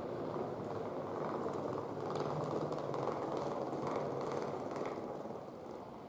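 Steady rushing ambient noise inside a station building, with faint light clicks from about two seconds in; it falls off a little shortly before the end.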